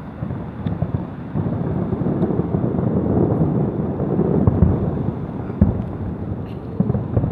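Fireworks going off: a continuous low rumble of overlapping booms with crackling, and sharper bangs about four and a half, five and a half and seven seconds in.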